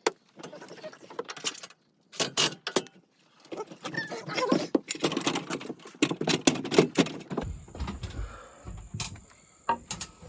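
Rattling, clicking and rustling from objects being handled close to the microphone, broken twice by short dropouts to silence.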